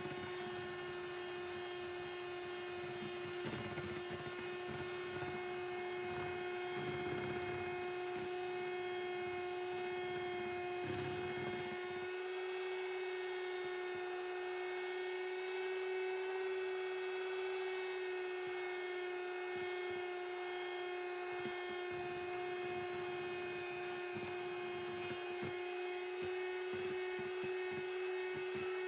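Electric hand mixer running steadily at one speed, beating egg whites into meringue, with a constant motor whine. Some scraping of the beaters against the bowl in the first half.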